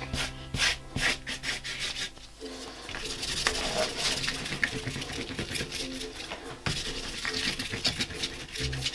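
White gesso being scrubbed and rubbed over paper, first with a flat bristle paintbrush and then with a bare hand, in quick back-and-forth strokes.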